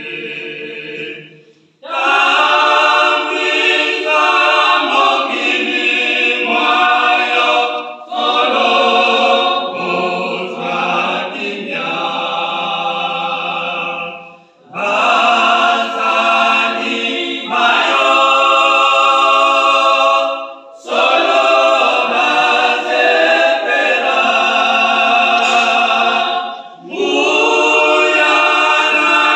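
A church choir singing a cappella, in phrases of about six seconds with short breaks for breath between them.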